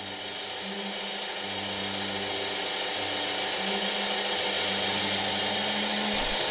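Electric scroll saw running and cutting wood, a dense buzzing motor noise with a hum that comes and goes, growing steadily louder.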